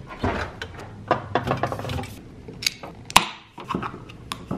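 A tall kitchen door pulled open with handling knocks and clicks, then the sharp crack of an aluminium energy-drink can's ring-pull being popped open about three seconds in, followed by a few lighter clicks.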